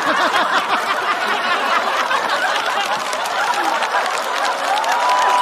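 Studio audience laughing and clapping, a dense steady wash of many voices and hand claps.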